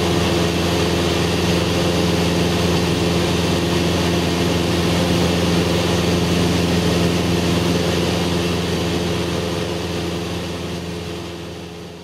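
Cessna 172's piston engine and propeller in cruise flight, a steady drone with a hiss of airflow heard from inside the cabin. It fades out near the end.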